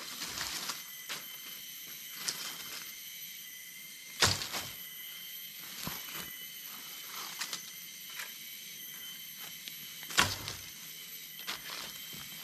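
Forest insects shrilling in several steady high tones, with dry leaf litter and twigs crackling and snapping; two louder snaps, about four seconds in and about ten seconds in.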